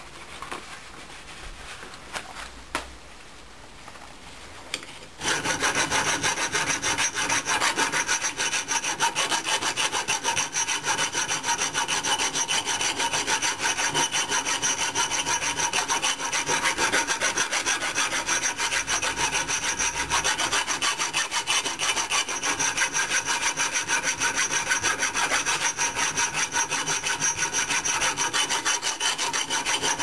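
A hand file stroking back and forth along the edge of an old steel axe head clamped in a vise, sharpening the blade. A few faint clicks come first, then a loud, steady run of rasping strokes starts about five seconds in and keeps going.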